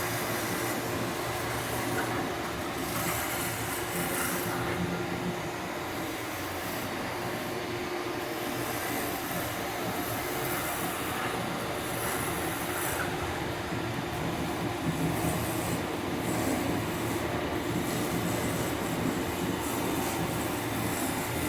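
Wood lathe turning a baseball bat, running steadily: an even hum under a broad hiss that goes on without a break.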